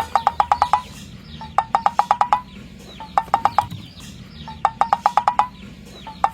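Chicken clucking in rapid bursts: about eight short, quick clucks per burst, the bursts repeating about every one and a half seconds.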